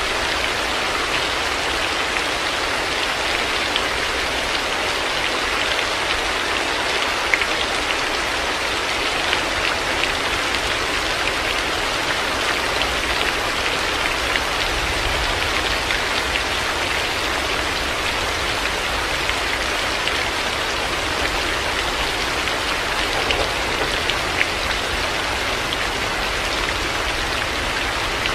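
Heavy rain falling steadily, a dense even hiss with scattered individual drops ticking on hard surfaces.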